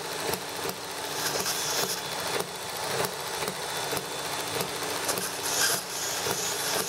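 Dremel rotary tool running with its small bit worked inside a short brass pipe, deburring the bore and clearing out chips. It is a steady motor whine, with harsher, hissier grinding stretches about a second in and again near the end.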